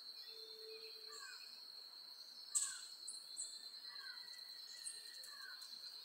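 Faint birdsong from the forest: short downward-slurred calls repeating every second or so, sharper high chirps, and one louder call about two and a half seconds in, over a steady high-pitched insect drone.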